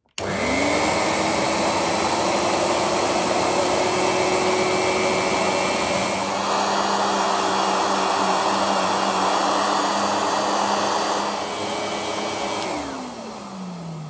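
1993 Numatic Henry HVR200 vacuum cleaner switched on with a Numatic TE290 electric power head plugged into its power takeoff socket. The motor spins up within a moment and runs steadily with the head's brush roll turning, its tone shifting about six seconds in. Near the end it is switched off and winds down in falling pitch.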